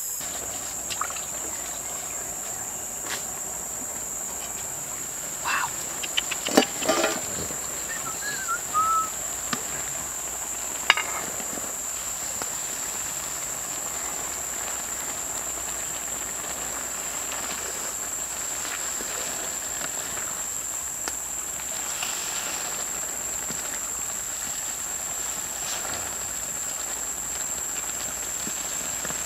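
Steady high-pitched insect chorus of crickets or cicadas, with a few sharp clinks and knocks about six to seven seconds in and once more near eleven seconds.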